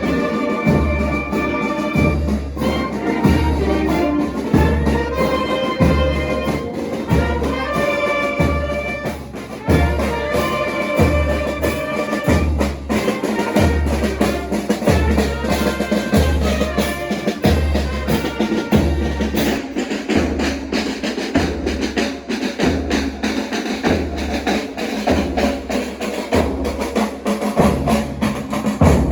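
Marching band playing brass and drums, with a steady bass drum beat about once a second. About two-thirds of the way in the brass stops and only the drums keep playing.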